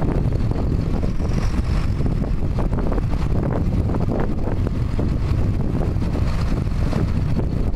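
Diesel tractor engines running steadily while a front loader lifts a load of manure, with wind buffeting the microphone as a low rumble.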